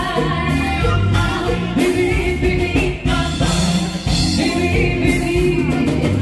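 Music with singing, a pop or rock song.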